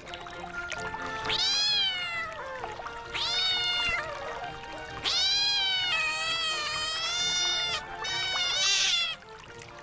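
A cat meowing four times, high-pitched calls that rise and fall, the third one long and drawn out, over soft background music.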